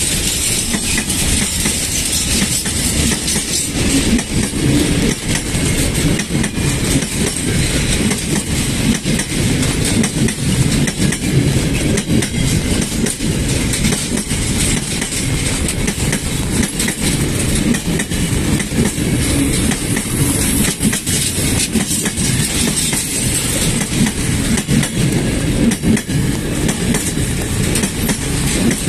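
A steady, loud rumble with a dense clatter of small clicks and a hiss above it.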